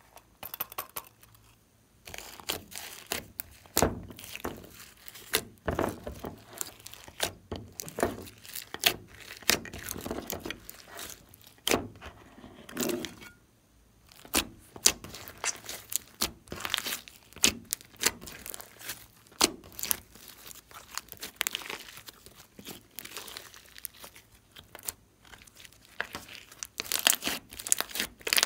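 Hands squishing and kneading slime, giving dense, irregular sticky clicks and pops, with two short pauses.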